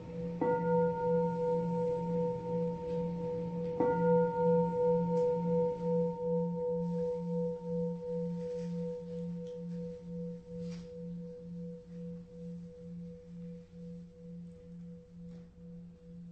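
Meditation bell struck twice, about half a second in and again near four seconds, each strike ringing on with a slow, wobbling pulse and gradually fading. It is the signal that the meditation is beginning.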